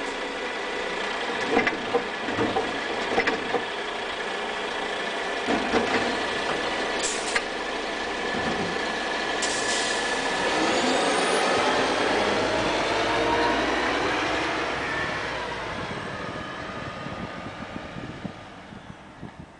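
Scania garbage truck with an NTM side-loader: the automatic arm knocks and clanks as it finishes with the bin, two short air hisses come about seven and nine and a half seconds in, then the diesel engine revs up as the truck pulls away and fades out.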